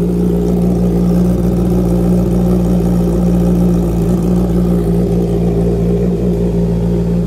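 Honda CB650R's inline-four engine idling steadily through a Drift Xaust aftermarket full exhaust system while warming up after a cold start.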